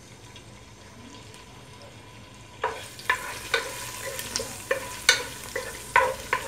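Onion frying in hot oil, the sizzle starting about two and a half seconds in, with a wooden spatula knocking against the pan about twice a second as it stirs.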